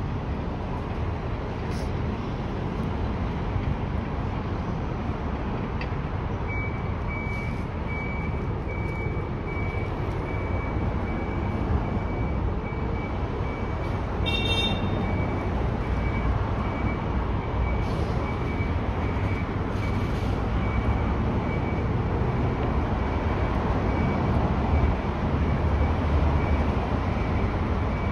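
Diesel bus and coach engines running as the vehicles manoeuvre, with a reversing alarm beeping about twice a second from about six seconds in. A brief high squeal comes about halfway through.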